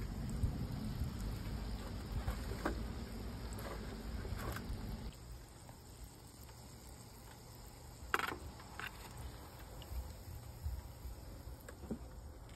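Donuts frying in hot oil in an aluminium foil pan: a faint sizzle, with a few light clicks.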